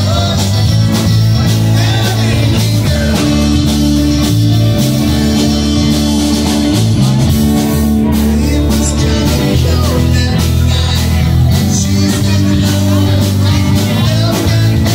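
Live blues-rock band playing electric guitars and drums, with a heavy bass line, heard loud from the floor of the room.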